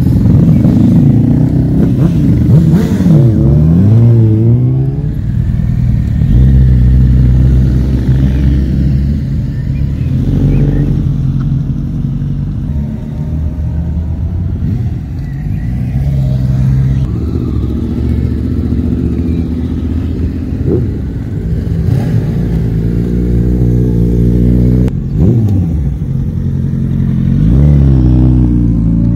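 A string of motorcycles riding past one after another, among them a Honda Gold Wing touring bike. Their engines are heard accelerating away, with the pitch sweeping up and down as they pull off and shift gears, and between passes some run steadily at low revs.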